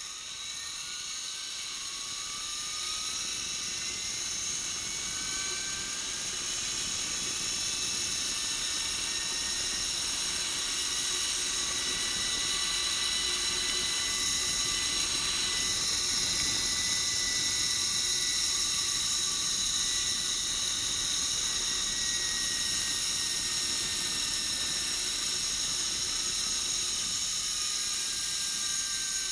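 Zipline trolley pulleys running along the steel cable: a steady high-pitched whirring whine that grows louder over the first several seconds, then holds.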